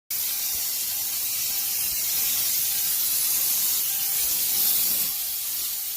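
Steam cleaner's nozzle jetting steam in a steady, high-pitched hiss, easing off slightly about five seconds in.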